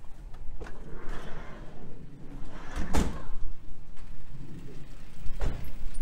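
Two dull thumps, one about three seconds in and a second near the end, over a steady low rumble.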